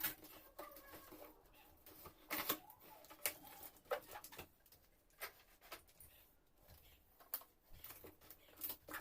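Plastic packaging wrap crinkling and crackling in short, scattered bursts as it is handled.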